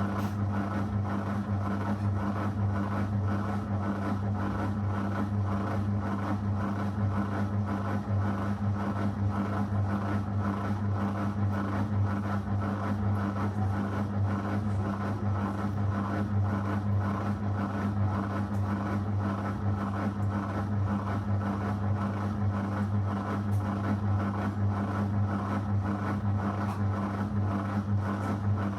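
Zanussi FL984CN front-loading washing machine running mid-cycle, with a steady low hum that holds unchanged throughout.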